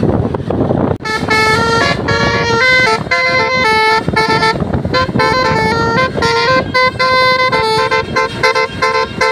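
Bus telolet horn of the 'basuri' kind playing a quick melody of short stepped notes, starting about a second in after a low rumble.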